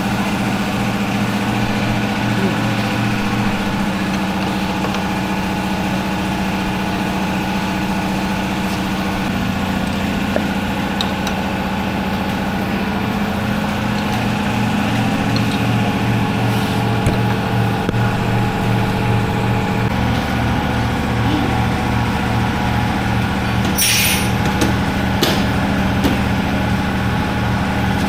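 Honda SP 125's single-cylinder engine idling steadily, its note shifting slightly about a third and two-thirds of the way through. A couple of sharp clicks near the end.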